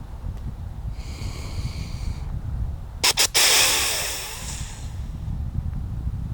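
A whitetail snort-wheeze, the buck's aggressive challenge call: two short sharp puffs about three seconds in, then a long drawn-out hiss that fades over about a second and a half. It is preceded by a softer hiss a second in, over steady wind rumble.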